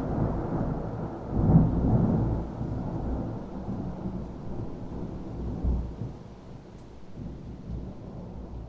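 Thunder rumbling: a low rolling rumble that swells again about one and a half seconds in, then slowly dies away.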